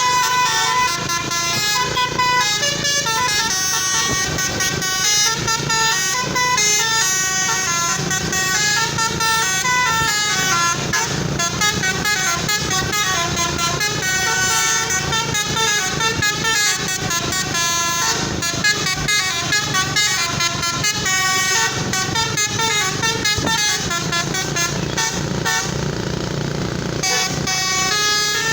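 Basuri telolet multi-tone bus horn playing a fast melody of short, stepped notes that run up and down in pitch without a break.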